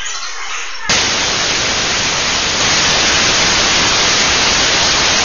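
Loud, even hiss of static noise that starts abruptly about a second in, replacing the quieter room sound, and holds steady.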